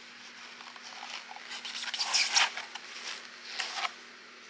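Packaging rustling and crinkling in uneven bursts as a silicone doll head is unwrapped and handled, loudest about halfway through.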